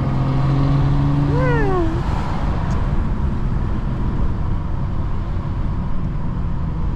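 Driving noise inside a BMW 435i with a turbocharged N55 straight-six: a steady low engine and road drone. About a second and a half in there is a brief high squeal that rises and then falls.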